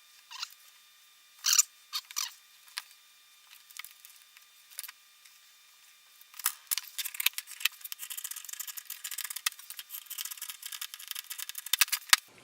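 Light scattered clicks and rustles of upholstery fabric being handled and marked for the new bellows, then from about six seconds a dense run of quick scratching strokes.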